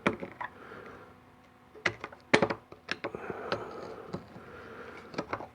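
Irregular light clicks and taps of metal tools and parts handled against a fuel injector rail during disassembly, the sharpest cluster about halfway through.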